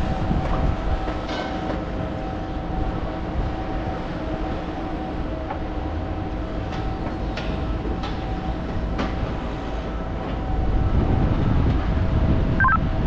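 Steady mechanical hum of crane machinery with a few whining tones, under a low rumble that grows louder about ten seconds in. A few faint clicks, and a brief chirp near the end.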